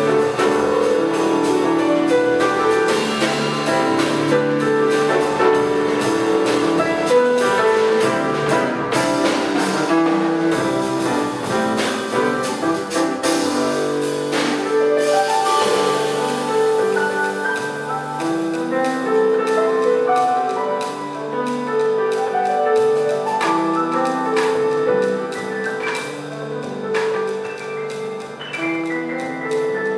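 Jazz piano trio playing live: grand piano carrying the melody and chords over an upright double bass, with cymbals and drums struck throughout.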